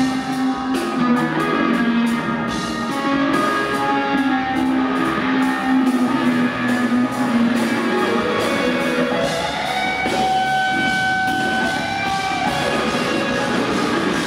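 A live rock band plays an instrumental passage: an electric guitar works through slow, held notes over drums and cymbals. About ten seconds in, a high note slides up and is held for a few seconds.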